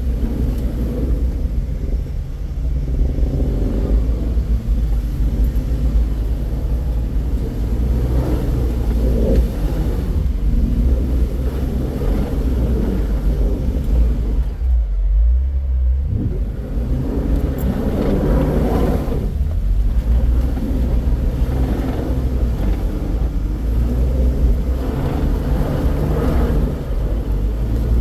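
Off-road vehicle's engine running with a steady low rumble, its higher sound dropping away briefly about fifteen seconds in.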